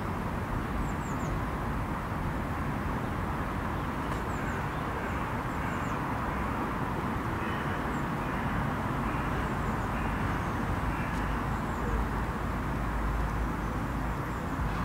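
Outdoor ambience of steady, distant road-traffic hum, with small birds giving brief high chirps every few seconds. A deeper rumble swells briefly near the end.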